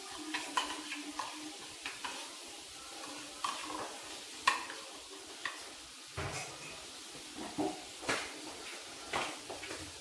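Metal spoon stirring a mayonnaise sauce in a bowl, scraping and clinking against the bowl in quick irregular clicks. In the second half come a few louder, separate knocks.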